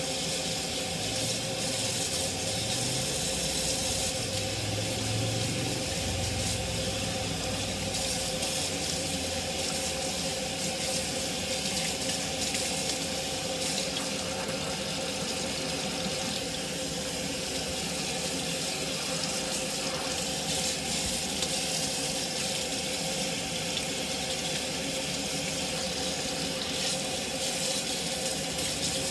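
Kitchen sink faucet running steadily, hot water pouring over hair and splashing into a stainless steel sink as the hair is rinsed.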